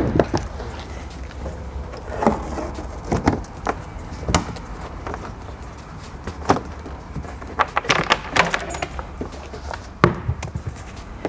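Workshop clatter from tools and car body parts being handled: scattered clicks, taps and clanks at irregular intervals, with a steady low hum underneath.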